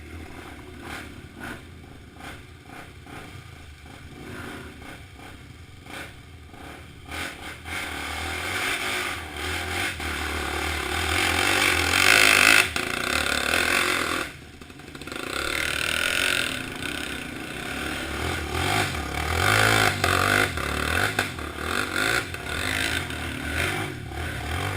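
Dirt bike engine revving hard, its pitch and loudness rising and falling. It is faint and scattered with clicks at first, builds to its loudest about halfway through, cuts out abruptly for a second, then picks up again.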